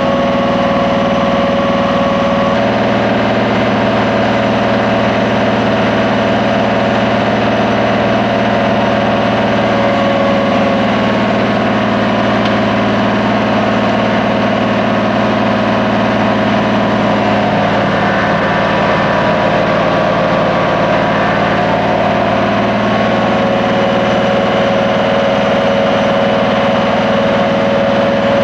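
Pacific-Tek PV-350 truck-mounted vacuum excavator running steadily at a constant pitch, its hose sucking soil and slurry out of a cored hole in the pavement.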